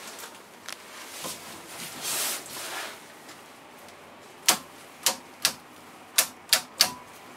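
Steering-column stalk lever in a Hidromek HMK 102B backhoe loader's cab being flicked through its detents: six sharp clicks at uneven spacing in the second half, with the engine not running.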